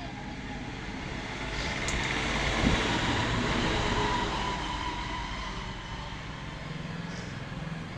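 Motor-vehicle engine noise that swells to a peak a few seconds in and then fades away, with a single sharp click near the loudest point.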